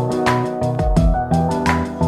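Background music with a steady beat and plucked melodic notes.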